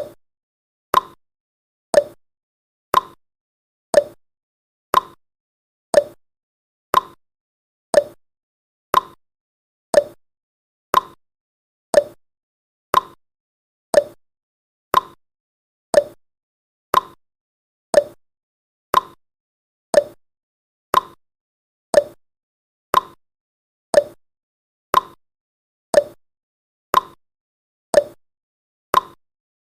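Countdown timer sound effect: a short tick once every second, with silence between.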